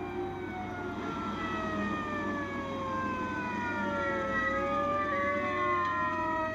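Police sirens winding down: several long tones slide slowly downward together, and the lowest one turns and rises again about four and a half seconds in.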